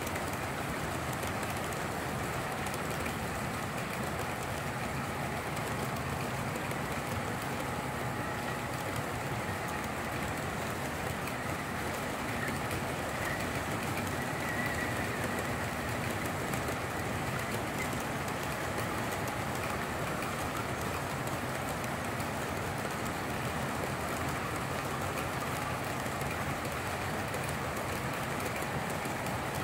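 Long S gauge model freight train rolling past, its many cars' wheels making a steady rolling rattle on the track.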